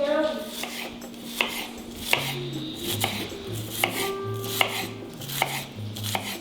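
A kitchen knife thinly slicing an onion on a cutting board: about a dozen sharp knocks of the blade striking the board, unevenly spaced, roughly every half second.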